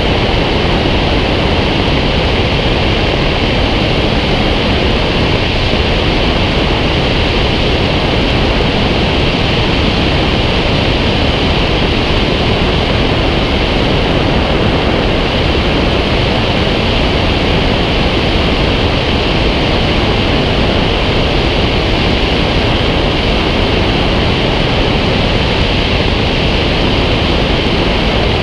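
Steady rush of air streaming past a glider's wing-mounted action camera in flight, an even, unbroken wind roar.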